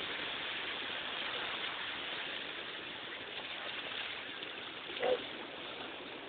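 Shallow surf washing up the beach, a steady rushing noise, with one brief voice sound about five seconds in.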